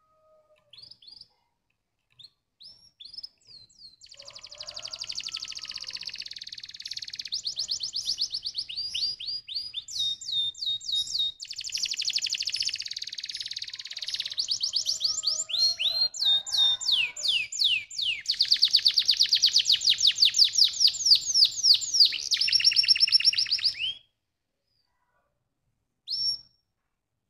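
Canary singing: a few short chirps, then about twenty seconds of fast trills and rapidly repeated notes that stops suddenly, followed by one brief note near the end.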